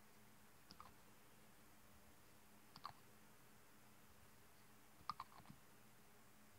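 Faint, scattered clicks of a nail polish brush and cap knocking against a small glass polish bottle while polish is dabbed onto a makeup sponge: a couple just under a second in, another near three seconds, and a small cluster about five seconds in, over near silence.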